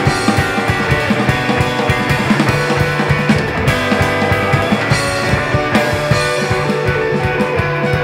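Instrumental rock music with no singing: guitars held over a fast, busy drum beat.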